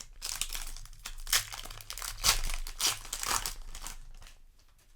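Booster pack's foil wrapper crinkling as it is handled and torn open, a run of uneven crackles that fades out near the end.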